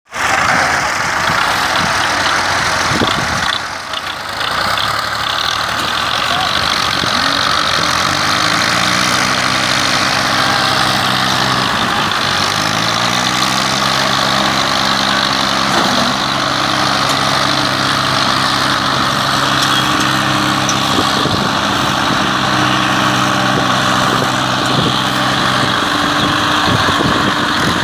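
Tractor diesel engines working hard to tow a heavily loaded trailer, over a steady loud noise. One engine revs up about eight seconds in, drops briefly near twelve seconds, revs up again and holds a steady pitch until shortly before the end.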